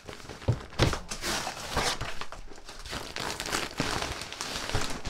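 Kraft-paper-faced R-11 fiberglass insulation batt being pulled out from between wall studs: the paper facing crinkles and rustles throughout, with a few irregular knocks.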